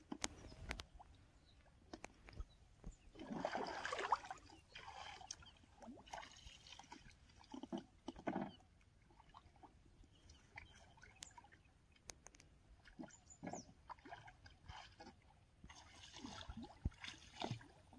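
Faint, irregular water sloshing and splashing around a man wading in the shallows and a wooden boat, with a few small clicks and knocks.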